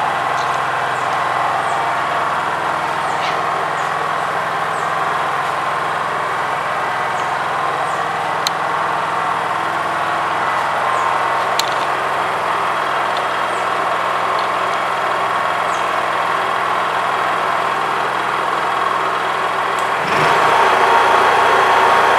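Honda EU3000iS inverter generator running in eco mode while powering a Makita MAC2400 2.5 hp electric air compressor as it pumps up its tank. Both run steadily and the generator carries the load with ease; a little after twenty seconds the sound steps up louder.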